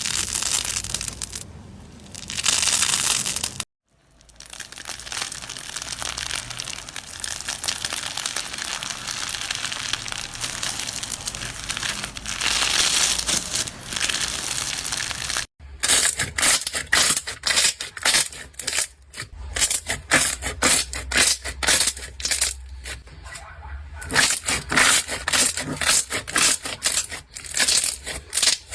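Slime being squeezed and pressed by hand, heard as three short clips: a steady crackling hiss, then a run of sharp, quick crackles and pops from about halfway on.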